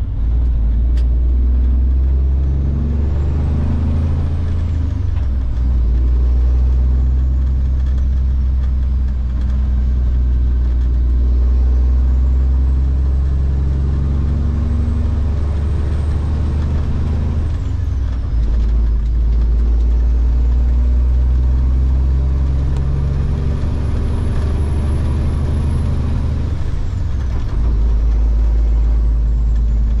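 Semi-truck diesel engine pulling away and working up through the gears. Its drone and a faint high whine rise with engine speed, then drop at each gear change, about three times.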